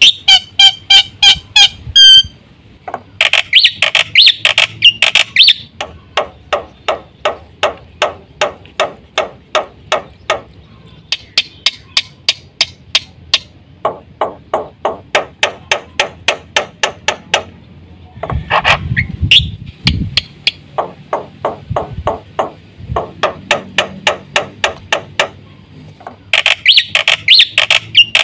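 Black-winged starling (jalak putih) in full song: long runs of sharp, evenly repeated clicking notes about three a second, broken by bursts of fast chattering whistles near the start and again near the end.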